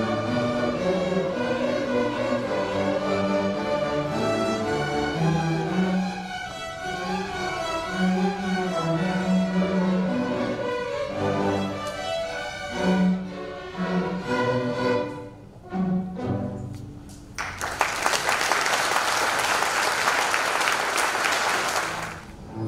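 Student string orchestra of violins, cellos and double basses playing the closing bars of a piece, the last chords spaced out by short pauses. About three-quarters of the way in, the audience breaks into applause, which cuts off suddenly near the end.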